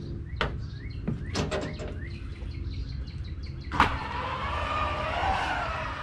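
A few knocks of footsteps on metal RV entry steps. About four seconds in there is a click, and the Dometic electric awning motor starts running with a steady whine as it extends the awning, cycling it out and in to synchronize the newly replaced awning.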